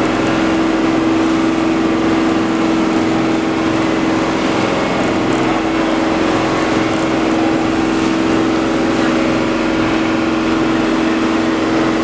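Boat engine running steadily: a constant loud drone with a steady hum that does not change.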